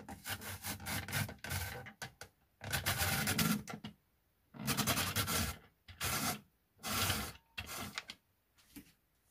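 Carrots being shredded in a hand-cranked rotary drum grater: a rasping grate that comes in repeated bursts of about a second or less, with short pauses between them.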